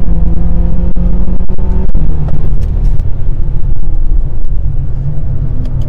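Tuned BMW M6's S63TU twin-turbo V8, with catless downpipes and resonator delete, running hard under full-throttle acceleration. The engine pitch steps down about two seconds in as the gearbox shifts up, then it keeps pulling.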